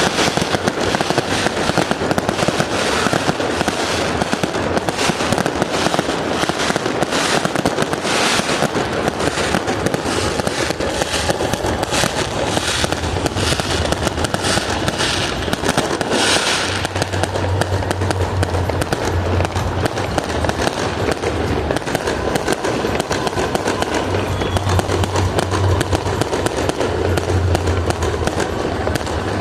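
Fireworks going off in quick succession: a continuous barrage of bangs and crackling, densest in the first half, with music underneath.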